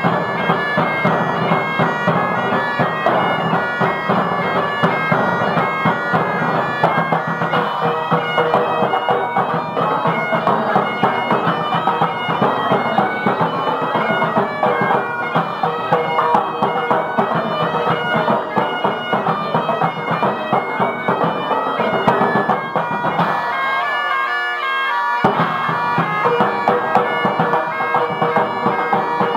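Highland bagpipes, two sets playing a tune together over their steady drones, with drums beneath. For about two seconds near the end the low drone-and-drum sound drops out, leaving the melody on its own before the full sound comes back.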